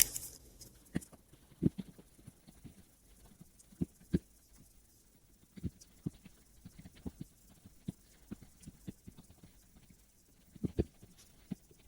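Faint, irregular soft clicks and taps, one or two a second, with a short cluster of them near the end.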